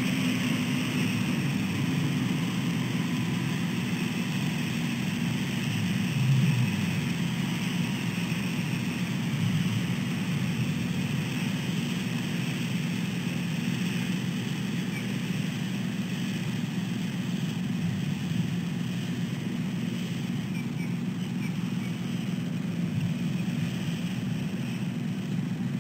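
Steady low rumble of road traffic, under a faint even hiss.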